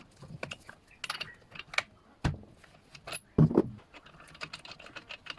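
Hand tools and metal parts clicking and clinking while a string trimmer is worked on by hand, with two heavier knocks about two and three and a half seconds in.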